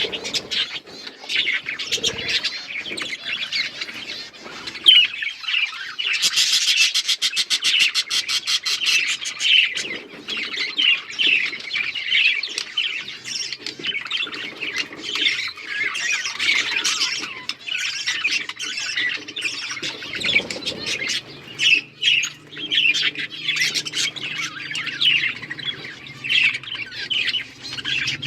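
A flock of small Australian parrots chirping and squawking continuously in a dense chatter. A fast rattling run of calls comes from about six to nine seconds in, and a low steady hum joins in the second half.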